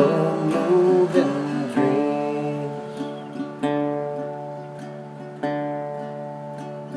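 Acoustic guitar playing an instrumental break in a country song: a few chords strummed and left to ring, the sound slowly fading toward the end.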